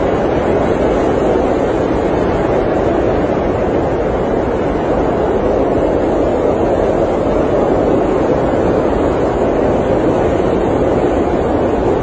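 Blizzard wind heard from inside an RV: a dense, steady rushing noise, strongest in the low-middle range, with no single gust or knock standing out.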